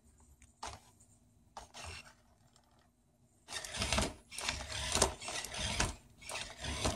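Animatronic Yoda toy moving its arm and lightsaber: a few faint clicks, then about halfway in several seconds of loud, uneven mechanical noise in surges.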